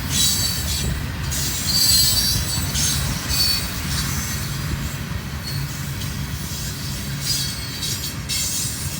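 Freight cars of a mixed freight train rolling past with a steady low rumble. Their wheels squeal in short high-pitched bursts that come and go, most strongly near the start, about two seconds in, and again near the end.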